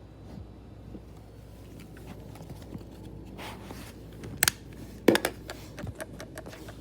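A CPU cooling fan hums steadily under a brief rush of noise, a sharp click, and, loudest, a clatter of knocks and clicks about five seconds in, followed by a run of light ticks.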